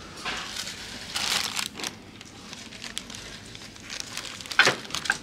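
Rustling and crinkling noises, with a sharp knock about four and a half seconds in.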